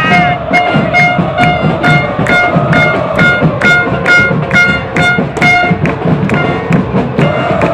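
Football supporters' drums beating a steady rhythm of about two strokes a second, with a horn sounding a short note on each beat over the crowd's chanting in the stands.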